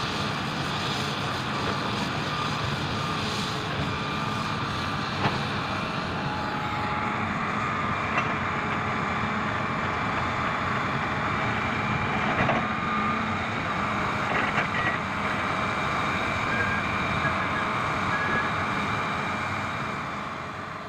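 Hitachi 310 hydraulic excavator's diesel engine running steadily under load as it digs and swings rock into a dump truck, with a few sharp knocks of rock along the way.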